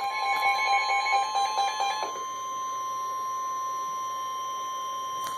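NOAA Weather Radio's warning alarm tone, one steady 1050 Hz tone that signals an emergency alert is about to be read. For about the first two seconds a rapidly pulsing electronic beep sounds over it; then the tone goes on alone and cuts off near the end.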